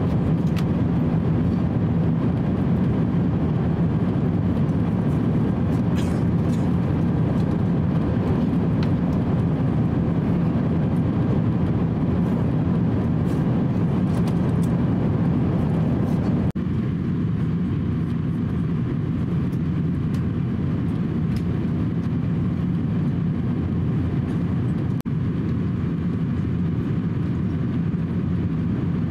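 Cabin noise of an Airbus A350-900 at cruise altitude: a steady low rush of airflow and engine drone. About halfway through, the upper part of the noise drops away suddenly and it becomes slightly quieter.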